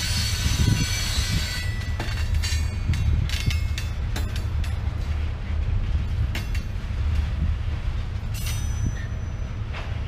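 Freight train covered hopper cars rolling past on a curve. Steel wheels squeal against the rail for about the first second and a half. A low steady rumble with scattered clicks and clanks follows.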